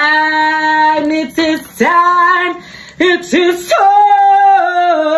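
A woman singing loudly in long held notes, sliding up into each one, the last note held with vibrato.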